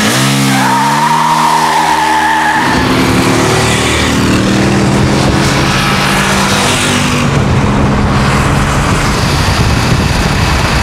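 BRP Can-Am Spyder's Rotax 990 V-twin revving up hard while a tyre squeals over the first couple of seconds, then running on at a steadier, lower pitch.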